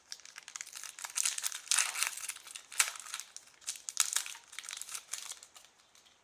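Foil wrapper of a Pokémon TCG booster pack crinkling as it is handled and opened by hand, in a run of crackles with several louder crinkles.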